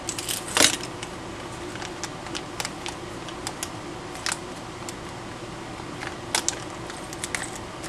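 Light clicks, taps and rustles of small plastic parts and packaging being handled and picked through, with a few sharper taps about half a second in and again near six and a half seconds, over a steady low background hum.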